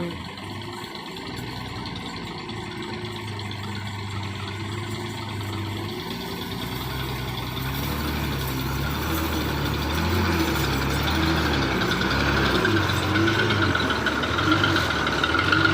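Engine of a fully loaded 1985 Bedford truck running under load on a muddy road, its pitch wavering up and down and growing steadily louder. A steady higher whine joins about two-thirds of the way in.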